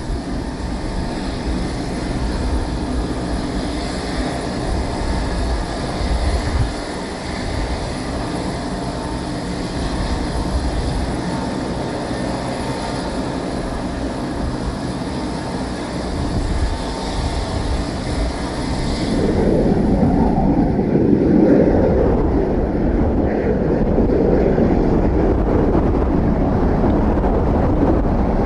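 Strong wind buffeting the microphone over steady airport hum beside a parked Boeing 727-200 freighter. About two-thirds of the way through it cuts to the louder, deeper rumble of the 727's three Pratt & Whitney JT8D-17R turbofans running on the runway, still mixed with wind.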